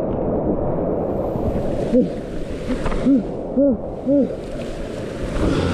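Whitewater rapids rushing around a camera at the water's surface. About two seconds in, a voice gives four short, rising-and-falling shouts, a kayaker calling out over the river.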